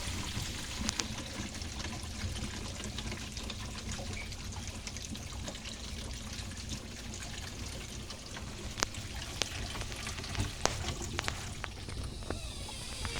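Water from two filled kitchen sinks draining through the drains and garbage disposal: a steady rush of draining water with scattered small clicks, at a good drain speed.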